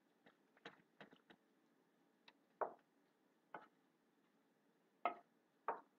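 Wooden spoon stirring thick vegetable soup in a stainless steel pot, knocking against the pot: a few light ticks at first, then four louder knocks about a second apart in the second half.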